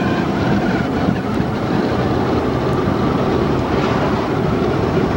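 Steady engine and wind noise of a moving vehicle, picked up by the camcorder's microphone.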